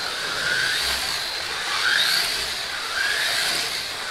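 Two Pioneer slot cars, a '67 Camaro and a '68 Mustang, racing around the track, their small electric motors whirring with a whine that rises and falls in pitch about once a second.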